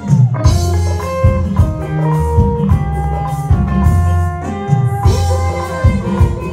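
A live band playing an instrumental passage: electric guitars over bass guitar and drum kit, loud.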